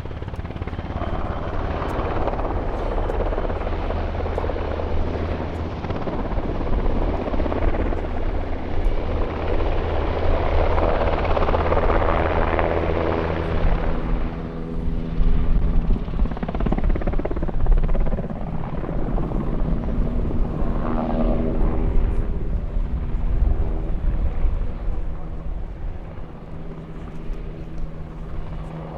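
NH-90 tactical transport helicopter flying a display pass: a steady low rotor beat under a rushing turbine and blade noise. It swells through the middle and fades somewhat near the end.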